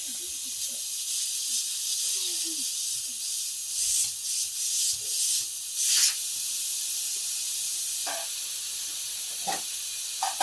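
Steady hiss of rain, with a few brief crackles about midway and faint voices in the background.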